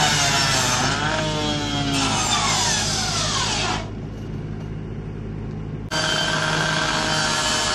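Rotary cut-off saw cutting into a car's sheet-metal hood, a loud grinding whine whose pitch sags as the blade bites. Shortly before four seconds the sound falls to a dull low rumble, then cuts back in abruptly about two seconds later and runs steady.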